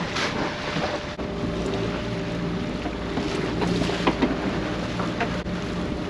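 Small fishing boat's engine running steadily, with wind buffeting the microphone and a few short knocks and clatters.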